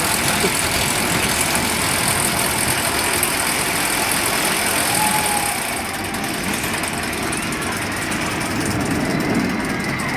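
Steel roller coaster train rolling along its track: a steady rushing rumble that drops off a little about six seconds in.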